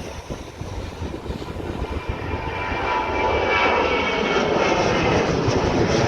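Boeing 737 jet engines at takeoff thrust just after liftoff: a broad roar that swells over the first few seconds and then holds loud, with a faint high whine on top. Wind buffets the microphone.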